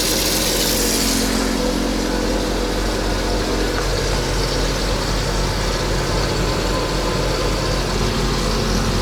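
A motor running steadily with a low hum, under a rushing hiss that drops away about a second in.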